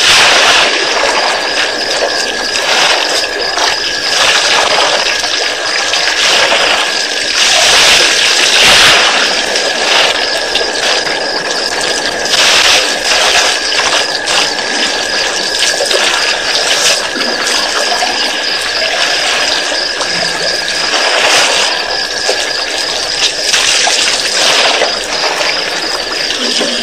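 Elephants drinking and splashing at a waterhole: uneven surges of gushing water over a steady hiss and a thin high whine.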